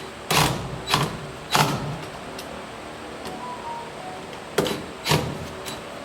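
Electric drill/driver run in short trigger bursts, six of them in two groups of three, driving Phillips-head screws.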